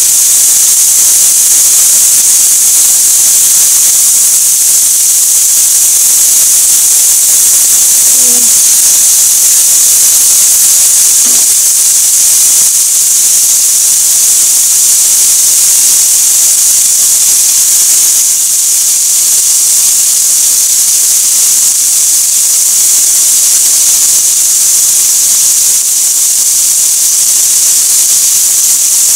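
Chicken pieces frying in a deep frying pan, giving a loud, steady high sizzle.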